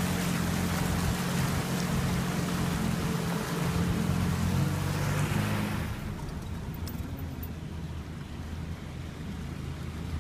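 Land Rover engine running steadily under load while driving through flood water, with water rushing and splashing around the wheels. About six seconds in the sound cuts to a quieter, steady engine rumble.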